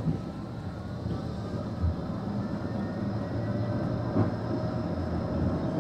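Electric Blackpool tram pulling away, heard from inside: its traction-motor whine rises in pitch as it gathers speed, over a steady low rumble, with a brief low bump about two seconds in.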